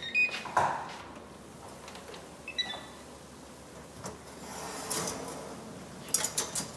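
Oven door opening and a metal baking tray of meatballs clicking and clattering against the oven rack as it is handled and pulled out, with a cluster of sharp clinks near the end. A brief high beep sounds about two and a half seconds in.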